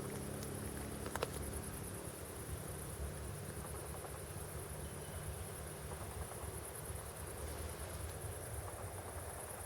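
Crickets chirring steadily with a fast, even pulse, over a faint low rumble; a single click about a second in.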